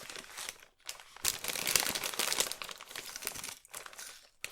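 Plastic snack bag crinkling and rustling as it is handled and opened, a dense crackle with short pauses.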